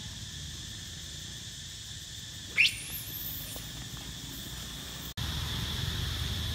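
Insects buzzing steadily in the forest. About two and a half seconds in there is a single short, loud squeak that rises sharply in pitch. The low background grows louder after a cut a little past five seconds.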